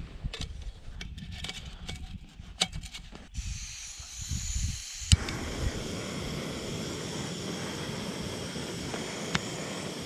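Jetboil Flash gas stove: the cup knocks into place on the burner, then the gas valve opens with a hiss. A sharp igniter click about five seconds in lights the burner, which then runs with a steady hiss.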